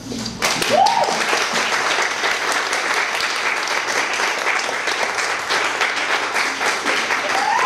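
Audience applauding, the clapping starting suddenly about half a second in and holding steady.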